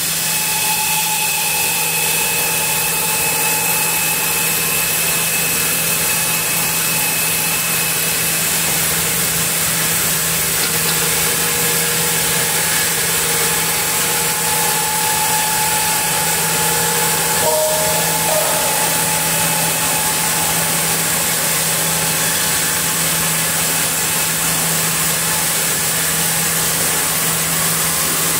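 Sawmill log band saw running steadily as the carriage feeds a camphor log through the blade, sawing off a thick slab.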